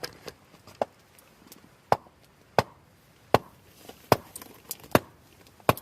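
Wood being chopped: around ten sharp, separate strikes, mostly evenly spaced at a bit under one a second.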